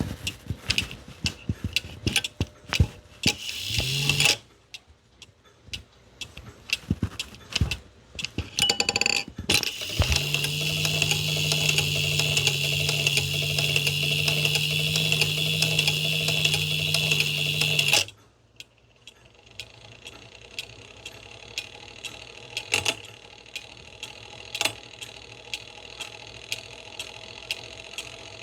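Black Forest cuckoo clock mechanism working: a burst of fast clicking, then about ten seconds in a steady loud whir with a low hum that stops suddenly some eight seconds later, followed by slower, spaced ticking.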